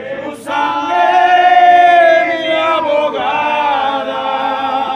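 Voices singing a slow hymn unaccompanied, in long held notes that glide gently between pitches. The singing starts about half a second in and breaks off just before the end.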